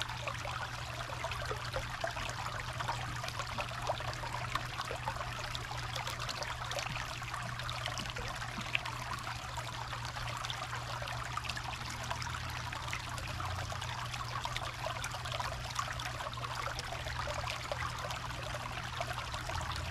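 Small creek trickling over rocks: a steady rush of running water, with a steady low hum underneath.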